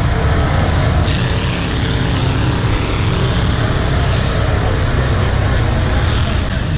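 Off-road vehicle engine running steadily, with a hiss over it that gets louder about a second in.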